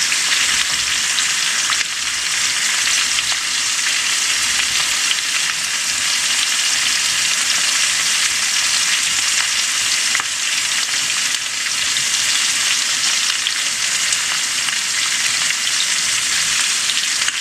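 Chicken thighs searing skin side down in a hot pan: a steady sizzle with many small crackles.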